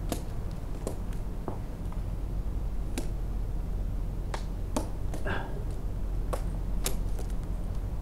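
Climbing rope and gear being handled: about ten sharp clicks and taps at irregular intervals over a steady low rumble.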